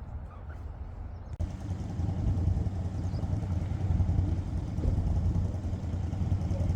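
Vehicle engine running with a steady low rumble, which jumps louder about a second and a half in.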